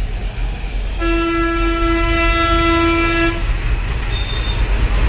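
A vehicle horn sounding one long steady blast of about two and a half seconds, over a constant low rumble of traffic.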